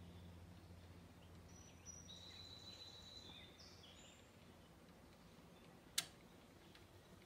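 Near silence over a low steady hum, with a few faint thin high chirps a couple of seconds in and a single sharp click about six seconds in.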